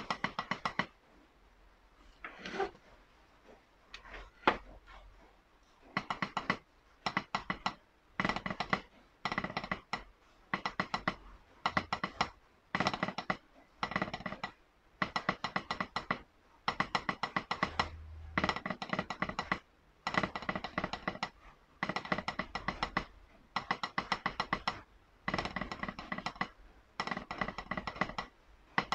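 Wooden drumsticks on a rubber practice pad playing basic roll patterns: short groups of fast strokes with brief pauses between them. A few scattered single strokes come first.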